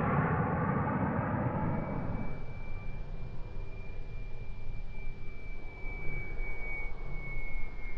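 Turbine jet noise from a large RC model jet with twin JetsMunt Merlin engines dies away over the first two seconds. It leaves a steady high whine that sinks slightly in pitch.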